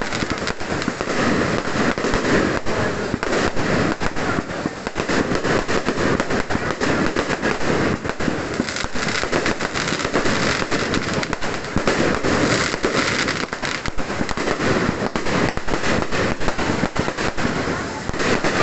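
Firecrackers going off in a dense, continuous run of sharp bangs and crackles with no pause.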